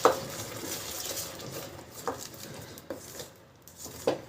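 A spoon stirring ginger paste into melted jaggery in a heavy-bottomed kadhai, knocking against the pan a few times over a faint sizzle that dies away.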